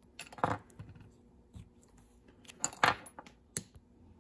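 Small metal parts of a Shimano 600 rear derailleur clinking and rattling as the pivot spring and bolt are handled during disassembly: several short runs of clicks, the loudest about three seconds in.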